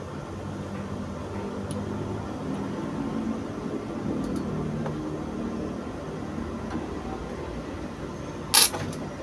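A screwdriver working the battery terminal screws on an inverter's front panel: faint clicks over a steady low hum, then one short, sharp snap near the end, the loudest sound.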